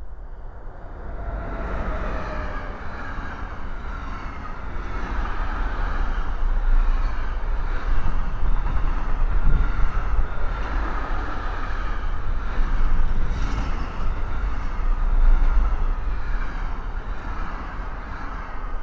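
Container freight train passing close by. The sound swells as the locomotive arrives, then holds as a steady rumble and clatter of wagon wheels on the rails.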